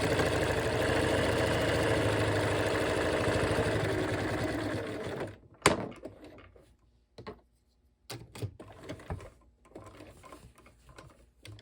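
Bernina 1130 sewing machine running steadily on a decorative stitch, stopping about five seconds in. A sharp click follows, then a few faint knocks as the work is handled.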